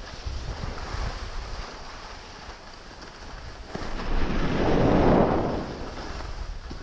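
Skis sliding and scraping over packed snow during a downhill run, with wind buffeting the microphone. The scraping swells louder about four seconds in for roughly two seconds, then eases.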